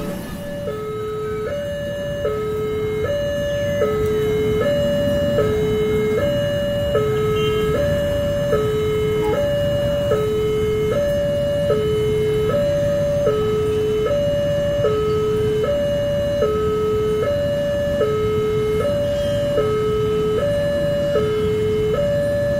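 Railway level-crossing warning alarm: an electronic two-tone signal alternating high and low about once every 1.5 s, with a low rumble underneath.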